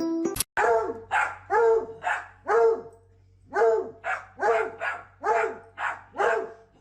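A dog barking repeatedly at about two barks a second, five barks, a brief pause, then seven more.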